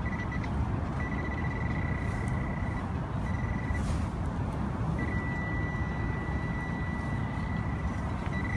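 Metal-detecting pinpointer sounding a high, steady beep tone in several stretches, pulsing in places and held unbroken from about five seconds in, signalling that it is right on a small buried metal target. A low wind rumble on the microphone runs underneath.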